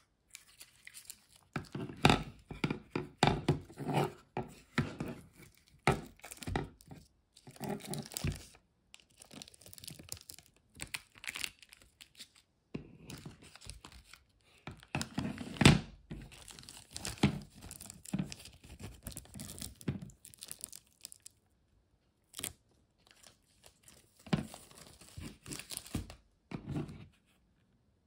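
Plastic one-touch magnetic card holder and plastic packaging handled in the hands: irregular crinkling and sharp clicks, in clusters with a few short pauses.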